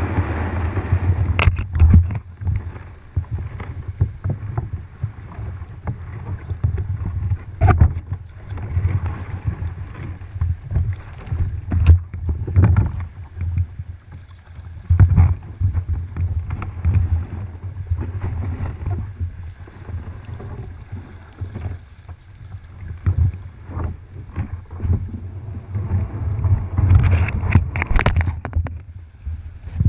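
Choppy water splashing and slapping against a plastic sea kayak's hull, with wind buffeting the deck-mounted microphone as a low rumble and irregular sharp splashes and knocks. Near the end there is a louder stretch of splashing and knocking as the kayak comes ashore on the beach.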